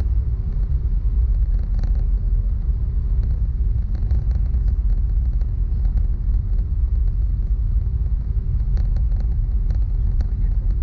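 Steady low rumble in the cabin of an Airbus A319 with IAE V2500 engines running at low power on the ground before takeoff, with a faint constant hum and light rattles.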